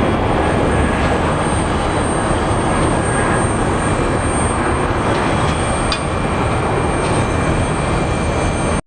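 Jet engine noise of a Boeing 777-300 climbing away after takeoff: a loud, steady, deep rumble that cuts off suddenly near the end.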